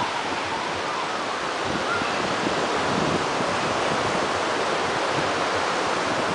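Surf washing on a beach, a steady noise that holds even, mixed with some wind.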